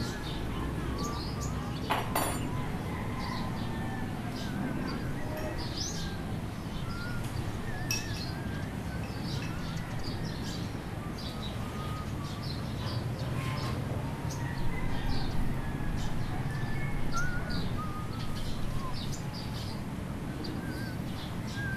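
Small birds chirping on and off over a steady low background noise, with a single sharp clink about two seconds in.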